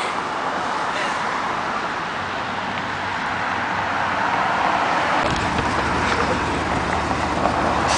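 Road traffic noise, a steady wash of cars going by on the street, with a low engine rumble joining about five seconds in.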